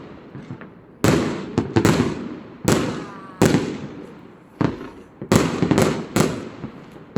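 Fireworks going off one after another: about eight sharp bangs, starting about a second in, each trailing off in a long rumbling echo.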